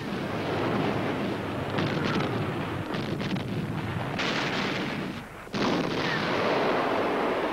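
Battle din of gunfire and explosions, dense and continuous. It dips briefly about five seconds in, then comes back suddenly at full strength.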